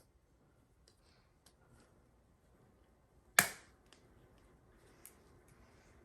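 A single sharp crack about three and a half seconds in, as multi-tool pliers crush the hard plastic back of a clothing security tag, with a few faint clicks of the tool on the tag around it.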